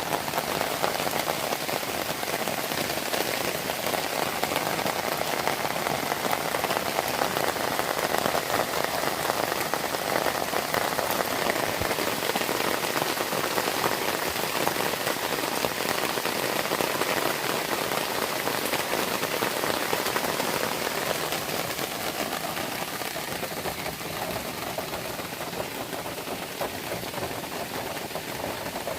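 Steady rain falling and pattering on surfaces, easing slightly over the last few seconds.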